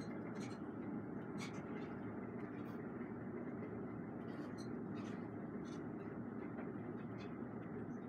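Steady low background noise of a room, with a few faint scattered ticks.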